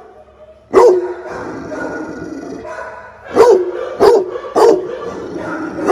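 Large pitbull-type dog barking: one loud bark about a second in, then three more in quick succession about half a second apart.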